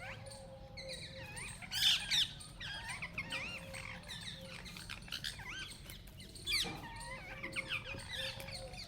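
Parrot chirping and whistling in a string of quick up-and-down chirps, with louder harsh calls about two seconds in and again near the seven-second mark.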